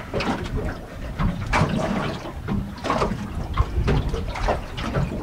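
Choppy sea water slapping and splashing against the hull of a small boat in irregular surges, with wind rumbling on the microphone.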